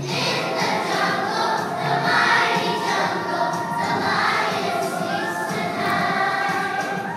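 A choir of second-grade children singing a song together.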